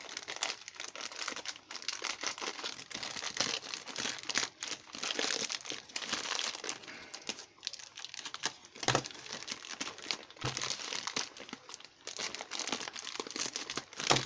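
Parcel wrapping crinkling and tearing as it is ripped open by hand after its tape has been cut, an irregular run of crackles, with a couple of soft knocks partway through.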